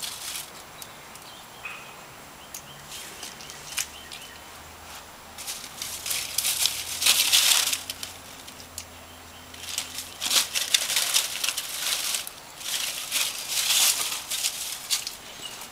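Dry fallen leaves rustling and crackling as a cat paws and pushes through them, hunting a chipmunk. The rustling comes in several bursts of a second or two, with quieter gaps between.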